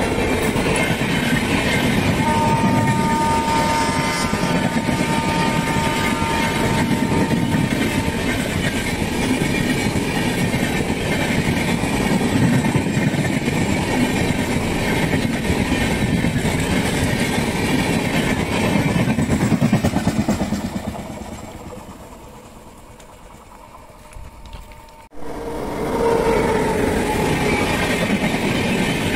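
Indian Railways LHB passenger coaches running past at speed: a steady rumble of wheels on rail with clickety-clack. A train horn sounds for about five seconds, starting about two seconds in. The rumble fades near the end, cuts off abruptly, then a passing train's rumble starts again.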